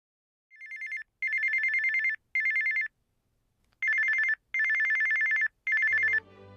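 Telephone ringing: a warbling two-tone electronic ring, sounding in two groups of three rings with a pause between the groups.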